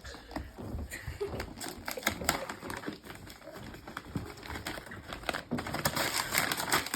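Gift wrapping paper being torn and crinkled open, a busy run of rips and crackles that grows denser in the second half.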